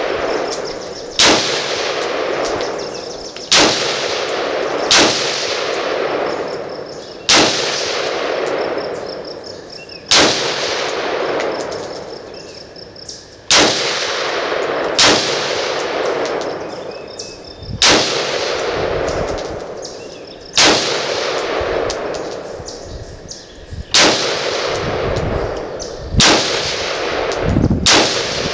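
Bushmaster AR-15 rifle firing single shots, about a dozen at an uneven pace of one every two to three seconds. Each sharp crack is followed by a long, fading echo.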